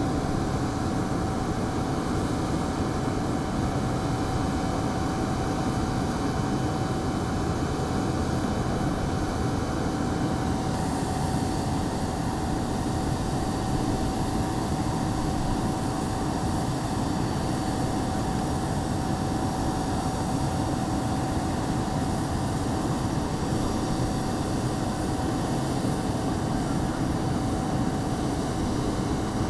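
Steady running whine and rumble of a parked Bombardier CRJ900 jet airliner, with a thin high tone held throughout and a slight change in the hiss about ten seconds in.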